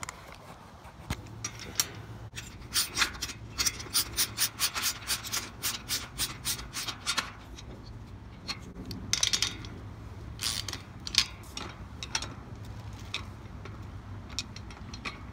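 A bolt being tightened with a hand tool on a steel garden cart frame: a quick run of sharp clicks, roughly five a second, a few seconds in, then slower scattered clicks and metal rubbing.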